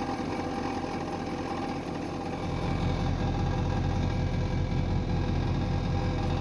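A car running with the transmission in drive: a steady whine over the low engine rumble, and the rumble grows louder about two and a half seconds in. This is the odd noise heard when the car is in drive.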